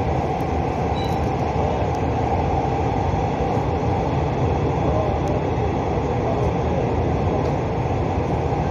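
Seoul Subway Line 4 train running at speed through a tunnel, heard from inside the car as a steady, loud rumble.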